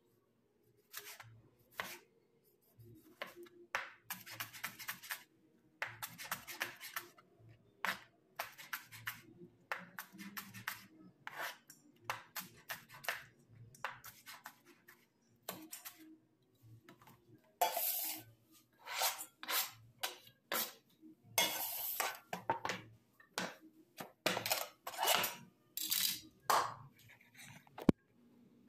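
Chef's knife chopping a tomato on a plastic cutting board: irregular knocks of the blade on the board, with a few longer scraping sounds. A single sharp knock, the loudest sound, comes near the end.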